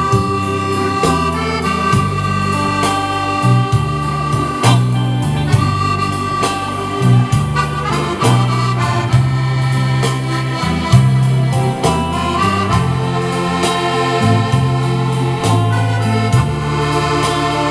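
Button accordion playing dance music over a bass line and a steady percussion beat.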